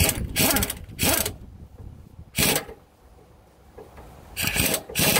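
Air impact wrench hammering in six short bursts, quick trigger pulls driving home the 5/8-inch center bolt that holds the driveshaft yoke on the transmission output shaft.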